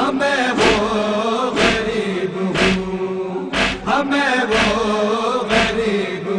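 Noha (Shia lament) interlude: voices chanting over a held drone, with a sharp beat about once a second.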